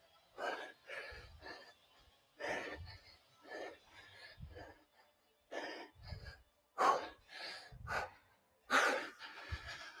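Two people breathing hard from exertion during squats, with short loud exhales coming one after another, about one or two a second.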